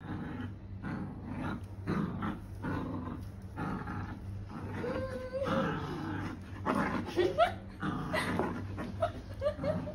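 Small dog growling in repeated short bursts while tugging hard on a toy in a game of tug of war, with short higher-pitched cries in the second half.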